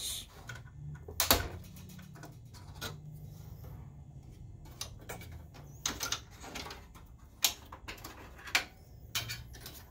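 Small plastic wire-harness connectors and cables being handled and unplugged inside an opened projector chassis: scattered clicks and light knocks, the sharpest about a second in.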